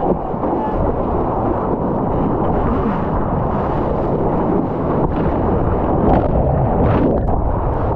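Strong wind buffeting a handheld GoPro's microphone while water rushes and splashes past a surfboard moving through chop, a loud steady rumble. Near the end, a brief burst of splashing as the camera is swamped by whitewater.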